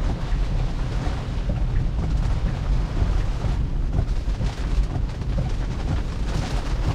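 Car driving in rain: a steady low rumble of tyres on a wet road with the hiss of rain and spray.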